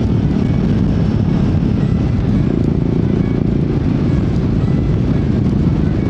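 Royal Enfield Guerrilla 450's single-cylinder engine and exhaust running steadily under way, at an even engine speed with no sharp revs.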